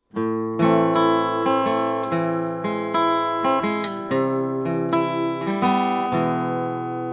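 Acoustic guitar playing a song's instrumental intro: plucked and strummed chords that change every half second or so, starting abruptly at the very beginning.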